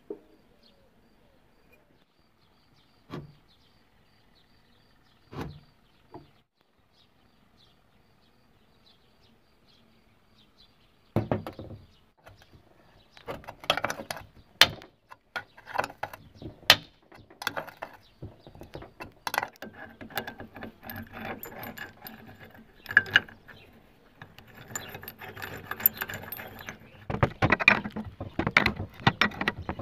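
A few single knocks. Then, from about eleven seconds in, a long run of metal clinks, clicks and rattles as a puller is fitted to a Honda Dio scooter engine's crankcase and its screw is turned with a wrench.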